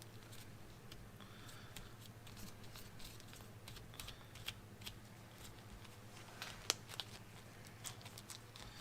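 Faint scattered clicks and light rustling from hands and small tools handling the work, with one sharper click about two-thirds of the way through, over a steady low hum.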